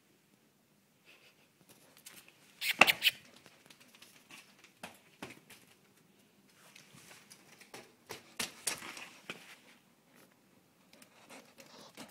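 Light taps and scuffs of a small Ouessant sheep's hooves on a concrete barn floor, in a hollow-sounding corridor. A few loud, sharp clattering knocks come about three seconds in and again around eight and a half seconds in.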